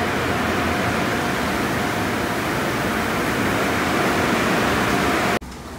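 Automatic conveyor car wash tunnel running: wrap and top brushes spinning, a loud steady rushing noise with a faint whine. Near the end it cuts off suddenly to a much quieter hum.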